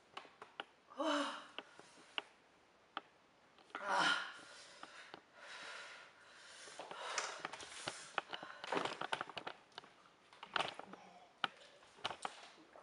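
A woman's heavy, wheezing breaths and sniffs, with a short rising whimper about a second in and a loud breathy gasp about four seconds in: her mouth and nose burning from habanero peppers and extra-spicy noodles. Small clicks and tissue handling are heard between breaths.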